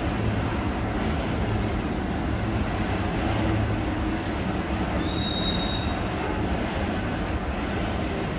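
Freight train of flat wagons loaded with steel coils rolling past: a steady rumble of wheels on the rails, with a brief high-pitched wheel squeal about five seconds in.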